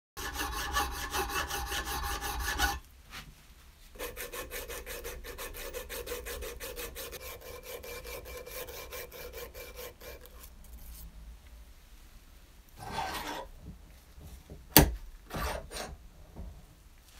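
A hand file rasping on a brass bottle opener held in a vise, in two runs of rapid back-and-forth strokes with a short pause between them. This is smoothing the roughly finished brass surface. Near the end come a few knocks and one sharp metallic clank as the vise handle is worked.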